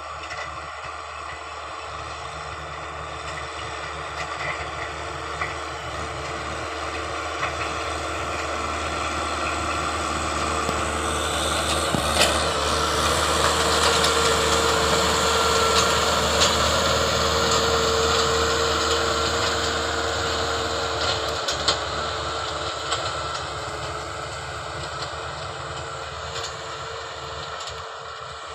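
A farm machine's engine running steadily, growing louder to a peak about halfway through and then fading, as if driving past, with a few sharp knocks along the way.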